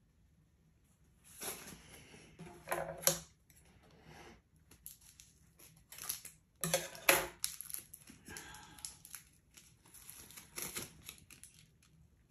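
Scissors snipping through the taped knot of a cloth snake bag, with rustling and crinkling of the fabric and tape as the bag is handled and pulled open. There are a few sharp snips among the irregular rustles.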